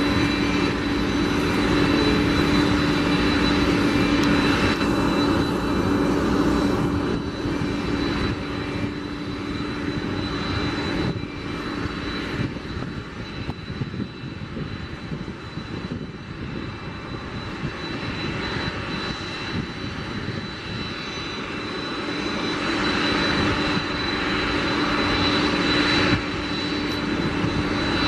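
Boeing 767 freighter's jet engines running at idle as the aircraft is pushed back by a tug: a steady whine over a broad rushing noise. It grows quieter through the middle and swells again near the end.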